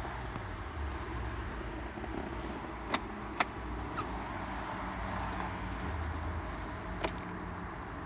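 A Mazda 3's ignition key being turned: keys jangle and there are a few sharp clicks, two about half a second apart and another pair about three seconds later, but the engine does not crank. It is a no-start with the immobilizer active.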